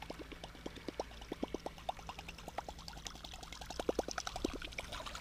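Chopper-style topwater musky bait being reeled steadily across calm water, its spinning tail blade churning the surface in a rapid, irregular run of plops and gurgles.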